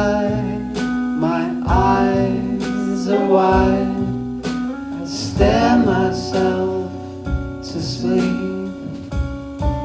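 Live band music: guitar playing over sustained low tones, with melodic lines bending up and down in pitch.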